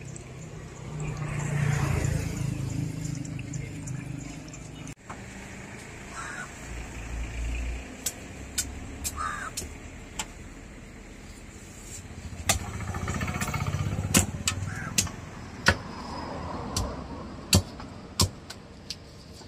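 A large knife scraping the scales off a big catla fish on a wooden chopping stump, with many sharp clicks of the blade in the second half. Motor vehicles pass twice with a low engine rumble that swells and fades.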